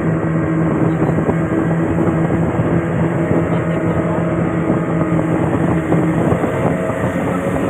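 Motorboat engine running steadily under way, its pitch shifting a little about six seconds in.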